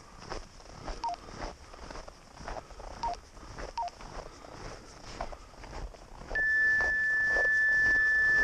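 A single steady high electronic beep, one pure tone held for about two and a half seconds, starting about six seconds in and louder than anything else. Before it, soft irregular crunching of movement through snow.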